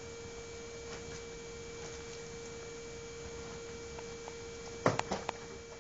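A steady faint hum, broken near the end by a quick cluster of three or four sharp knocks, with two faint ticks just before them.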